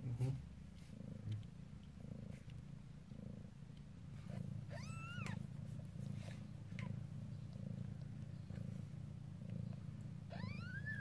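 Mother cat purring steadily while nursing her newborn litter just after giving birth, with two short, high, rising-then-falling squeaks from a newborn kitten, one about four and a half seconds in and one near the end.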